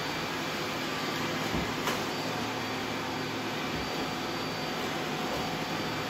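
Robot vacuum cleaners running, a steady whir of their suction motors and brushes, with a single click about two seconds in.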